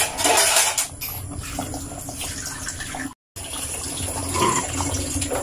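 Large pot of beef-skin stew boiling on a gas burner: a steady bubbling and hiss, with a metal ladle stirring through it in the second half. The sound drops out briefly about three seconds in.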